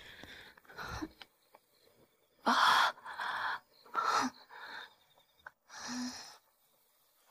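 A woman's pained breathing: about six short, sharp gasps and breaths, the loudest about two and a half seconds in, then quiet.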